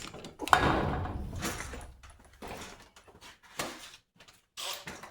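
A sharp metallic clunk about half a second in, with a sound that fades over a second or so, then a few lighter clicks and knocks: the SureWinder tool being fitted onto a garage door's torsion spring winding cone.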